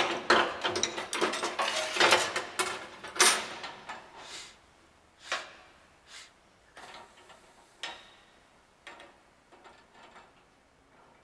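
Metal tools and fittings clinking and knocking as a wrench works the flare nut on a copper line at a brass solenoid valve: a busy run of quick clatters for the first four seconds or so, then scattered single clicks.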